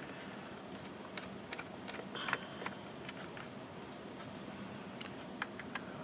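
Small screwdriver working the screws of a metal drive plate: scattered light clicks and ticks of metal on metal, with a brief scrape about two seconds in.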